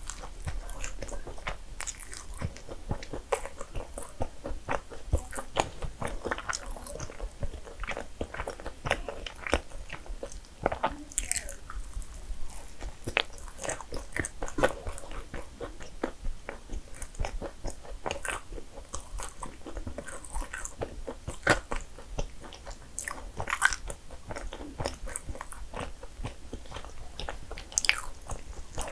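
A person chewing and biting cinnamon rolls: a dense run of small wet mouth clicks, with a few louder ones now and then.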